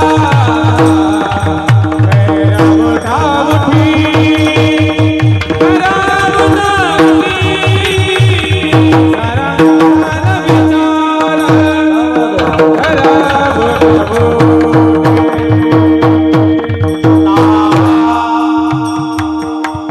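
A Marathi varkari kirtan tune (chal) sung over a steady drone with rapid hand-drum accompaniment. The drumming thins out briefly around the middle and again near the end.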